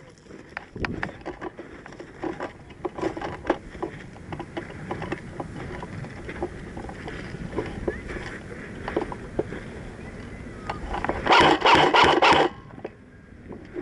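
Irregular rustling, scraping and rubbing with scattered clicks, and a louder rattling stretch of rapid clicks lasting about a second near the end.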